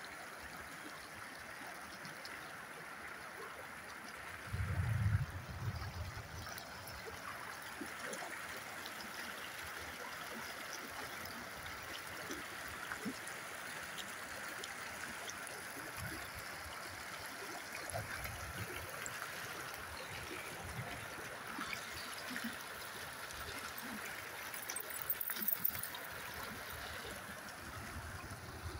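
Flash-flood water running in a steady rush. A brief low rumble breaks in about five seconds in.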